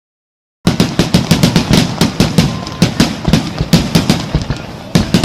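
Fireworks going off in a rapid volley: many sharp, echoing bangs, several a second, starting about half a second in.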